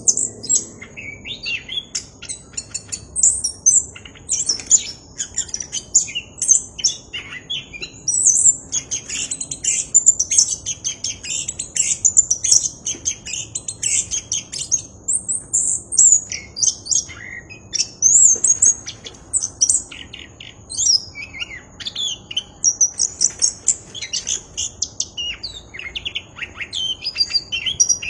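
Chestnut-capped thrush (anis kembang) singing a fast, continuous, varied song of high chirps, whistles and trills, with only brief pauses. A thin steady high tone runs underneath.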